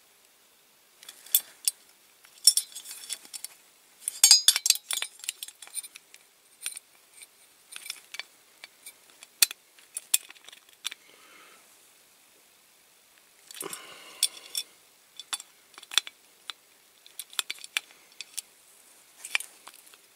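Screwdriver clicking and scraping against the metal of a die-cast toy, levering open the pinched jaws that hold its rear axle. Light metallic clicks and scratches come in uneven bursts, with a quieter pause past the middle.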